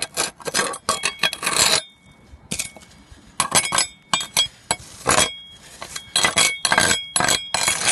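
Small metal trowel scraping moss off concrete roof tiles: a series of short, uneven scraping strokes, the blade clinking and ringing briefly against the tile edges.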